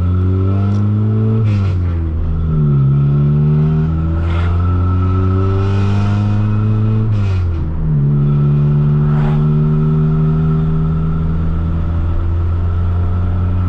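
EF Honda Civic's four-cylinder engine and exhaust heard from inside the cabin, pulling up through the revs, dropping at a shift about two seconds in, pulling again, dropping at another shift around seven seconds, then cruising steadily. The exhaust, a new muffler and silencer on the old piping, rattles, which the driver thinks comes from the silencer.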